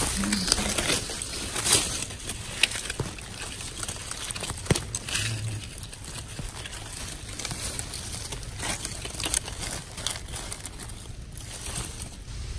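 Irregular rustling and crackling of dry leaf litter on the forest floor, with short sharp crackles scattered throughout.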